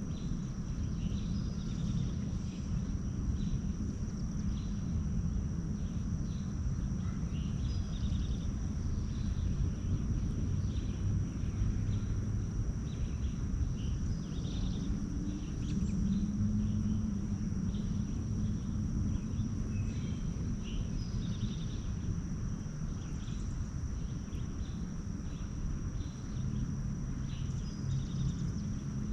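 Small birds chirping in short, scattered calls over a steady low rumble and a thin, constant high whine.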